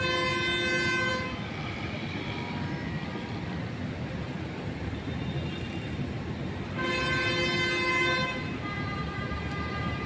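Steady background din with two long, sustained horn tones: one lasting about a second at the start, the other under two seconds, about seven seconds in.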